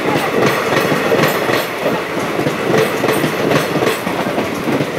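DEMU passenger coaches rolling past at close range, a steady loud rumble with wheels clacking over rail joints several times a second.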